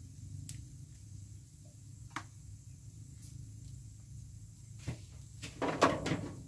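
Metal tongs laying sausage slices onto a crisp crepe on a round crepe griddle, giving a few light clicks over a low steady hum. Near the end comes a short burst of crackling and scraping.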